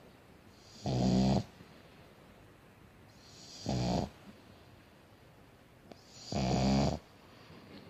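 Pug snoring in its sleep: three loud snores, one about every two and a half seconds, each lasting about half a second.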